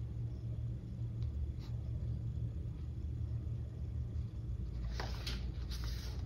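A paper booklet page turning with a brief rustle about five seconds in, over a steady low rumble.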